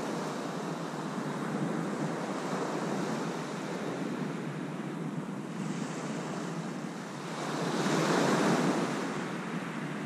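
Small sea waves breaking and washing up the beach in a steady surf, swelling louder about eight seconds in.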